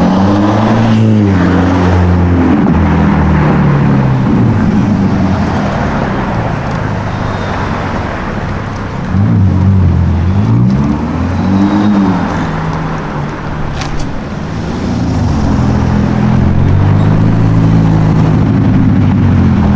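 A sports car's engine revving, its pitch climbing and falling three times.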